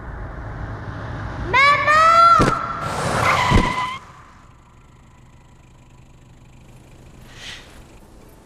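A car approaching and its tyres screeching under hard braking in a rising, wavering squeal, followed by a noisy burst and a thump. It all cuts off suddenly about four seconds in, leaving a faint low hum.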